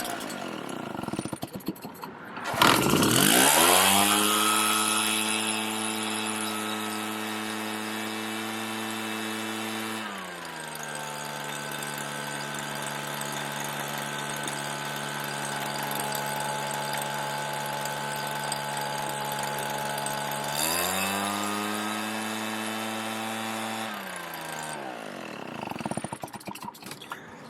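Redmax EBZ7500 backpack blower's two-stroke engine, running on an aftermarket carburetor with a new fuel filter. It winds down at first, starts again about three seconds in and runs steadily. It settles to a lower speed around ten seconds, comes back up around twenty-one seconds, and dies away near the end.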